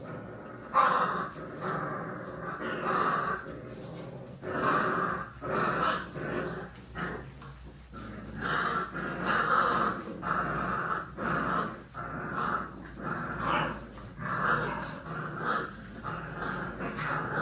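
A litter of American bully puppies play-fighting, growling in short, irregular bursts on and off throughout.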